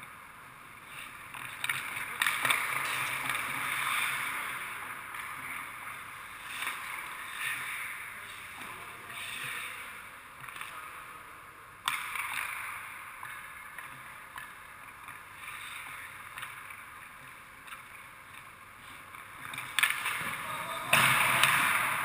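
Ice hockey skates scraping and carving the ice in swelling, fading strokes, with a few sharp hits of puck and stick on a goaltender's gear. The loudest hit comes near the end.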